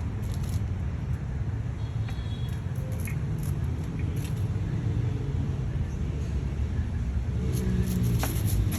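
Steady low rumble with scattered faint clicks.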